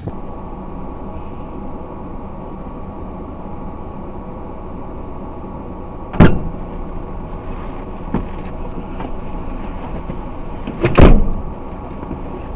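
A motor vehicle running steadily, with two loud knocks about six and eleven seconds in and a lighter one around eight seconds.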